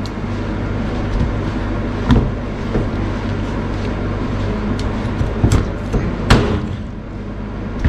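Cleaver chopping raw chicken on a plastic cutting board: one sharp chop about two seconds in, then two more around five and a half to six seconds, the last the loudest, over a steady low machine hum.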